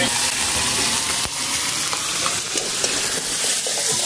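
Sliced onion, minced garlic and pork sautéing in hot oil in a metal pan, with a steady sizzling and frying sound as the onion and garlic cook to release their aroma.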